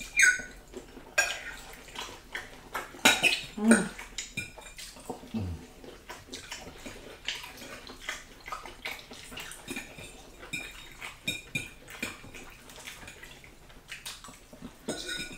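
Metal forks clinking and scraping against plates while people eat: an irregular scatter of light clicks and scrapes.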